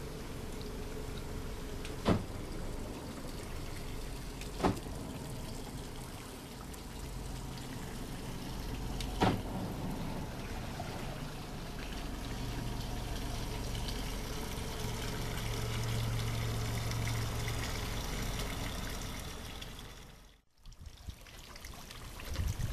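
Water trickling and lapping around a boat's hull at a dock, broken by three sharp knocks spread through the first half. A low steady hum joins in the middle, and the sound cuts out abruptly near the end.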